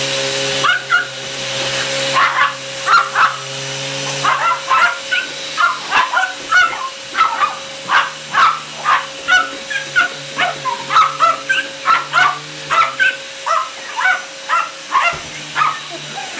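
A dog barking and yapping excitedly at a running vacuum cleaner, a few barks at first and then a rapid string of about two or three a second, over the vacuum's steady motor hum.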